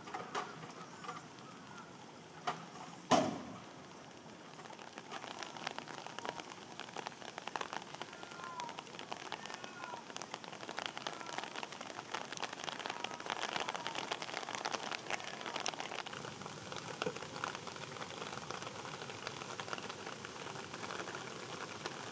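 Steady rain pattering on surfaces, becoming a dense patter about four seconds in. A single sharp knock sounds about three seconds in.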